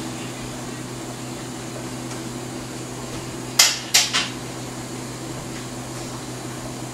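Two sharp knocks of cookware on a gas stove, about half a second apart a little past halfway, over a steady low hum.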